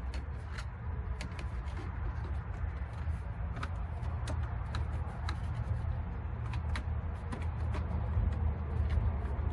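Scattered light clicks and taps of plastic dashboard trim being handled and fitted, over a steady low hum.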